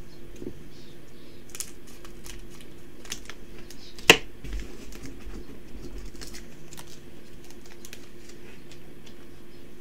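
A foil trading-card booster pack being torn open and handled by hand: a run of small crinkles and clicks, with one sharp snap about four seconds in. A faint steady hum sits underneath.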